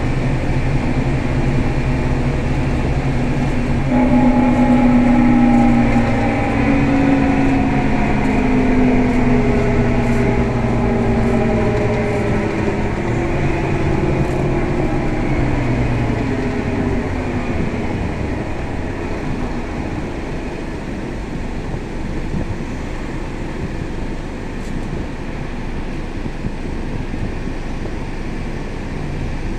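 Scania K320 bus engine running while the bus is on the move, heard from on board. About four seconds in its note comes up louder, then sinks steadily for some twelve seconds as the revs fall, after which a steadier, slightly quieter running noise continues.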